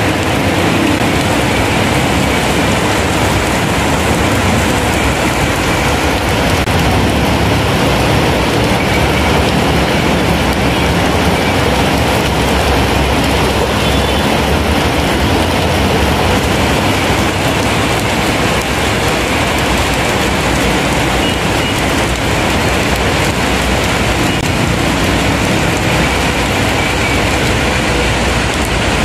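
Heavy rain pouring steadily onto wet, flooded pavement: a dense, even hiss that holds at the same level throughout.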